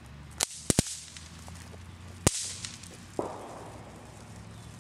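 Bang snaps (throw-down poppers) cracking as they are thrown down: a sharp crack about half a second in, two more in quick succession just after, another a little past two seconds, and a softer one about three seconds in.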